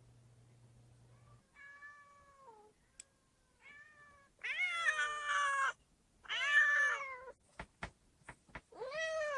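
Cats meowing: about five meows that rise and fall in pitch, the first two faint and the last three loud, with a few short sharp taps in between.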